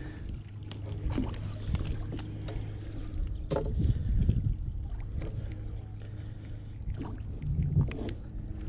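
Scattered knocks and clicks against a small fishing boat's hull as a freshly caught bass is handled on board, over a steady low hum.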